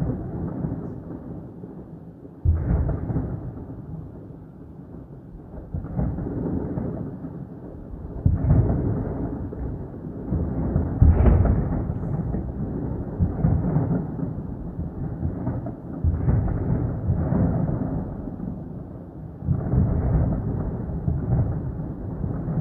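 Deep rolling rumbles of thunder, a string of booms that each start suddenly and roll on for a second or two, a few seconds apart.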